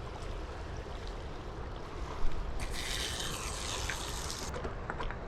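River water trickling and lapping at the bank, with a knock at about two seconds and a rushing hiss from about two and a half to four and a half seconds in.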